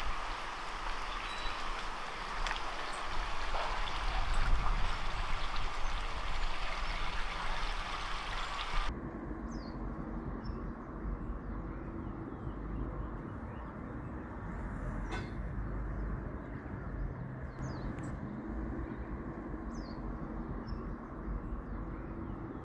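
Outdoor ambience: a steady rushing noise with a low rumble for the first nine seconds or so, which stops at an abrupt cut. After it comes a quieter low background hum with a handful of short bird chirps.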